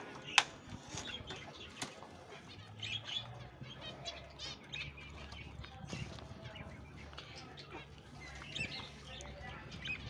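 Small cage birds, zebra finches and budgerigars, chirping and chattering faintly in an aviary. Two sharp clicks come about half a second and two seconds in.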